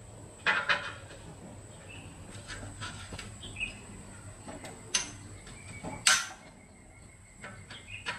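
A handful of sharp knocks and clicks, in a cluster about half a second in, again near five seconds and loudest about six seconds in, with a few faint high chirps between them.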